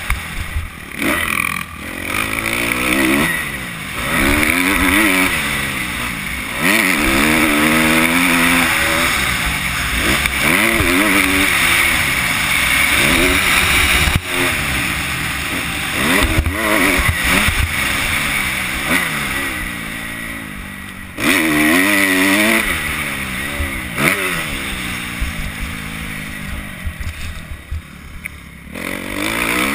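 Kawasaki KX250F's single-cylinder four-stroke engine revving up and falling off over and over as the bike is ridden hard, the pitch climbing and dropping through the gears. There is a sharp knock about halfway through, and a sudden burst of revs about two-thirds of the way in.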